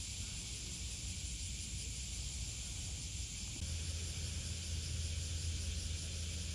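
Steady outdoor hiss with a low rumble underneath that gets louder a little past halfway through.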